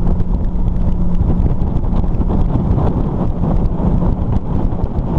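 Heavy wind buffeting the microphone as a Yellowfin flats boat runs across the water, with a steady low engine hum underneath that is clearest in the first few seconds.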